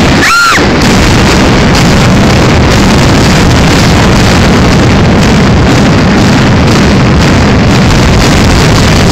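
Explosive demolition charges firing in a concrete parking garage: a sudden blast and a continuous heavy rumble that overloads the phone's microphone and stays clipped throughout, louder than a thunderstorm.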